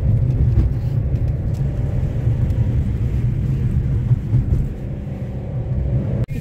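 Steady low rumble of a moving car's engine and tyres heard from inside the cabin, with no voices; it cuts off abruptly just before the end.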